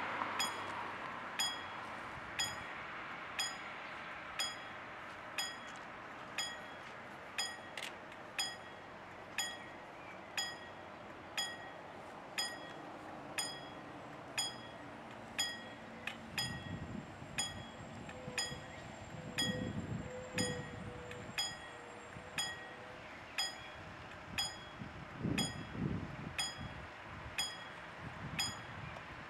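Level-crossing warning bell ringing about once a second, a short bright ding each time, as the crossing is closed for an approaching train. In the second half, low rumbles swell and fade a few times under the dings.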